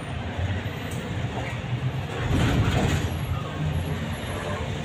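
Cabin noise inside a moving trolleybus: a steady low rumble of road and body noise. It grows louder for a moment about halfway through.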